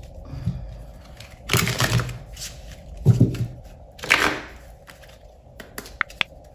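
A deck of oracle cards being shuffled and handled by hand: a few separate swishes of cards sliding against each other, then several quick light clicks near the end.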